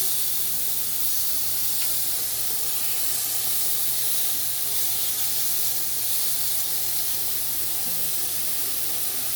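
Chicken thighs sizzling on an indoor grill: a steady hiss, with a faint tick about two seconds in.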